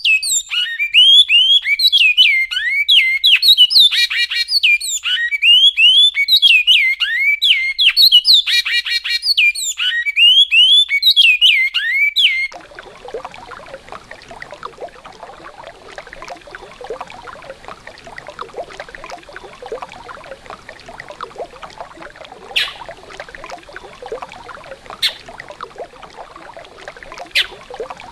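Bicudo (great-billed seed finch) singing the classic goiano song: a rapid run of loud whistled phrases that cuts off abruptly about twelve seconds in. Then a river's running water, with three short sharp sounds near the end.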